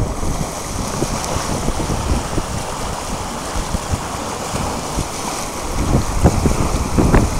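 Wind buffeting the microphone over the rush of a strong sea current swirling along a quay wall, gusting harder near the end.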